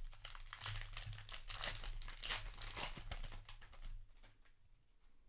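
Foil booster-pack wrapper crinkling and crackling as it is handled, in quick irregular crackles that stop about four seconds in.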